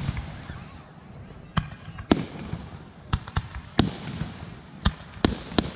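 Aerial fireworks shells bursting: about eight sharp bangs at uneven intervals, several in quick succession in the second half.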